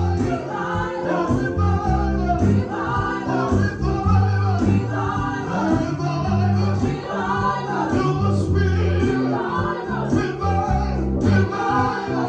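Gospel praise-and-worship music: voices singing together, with a choir, over a steady band accompaniment with a prominent bass line.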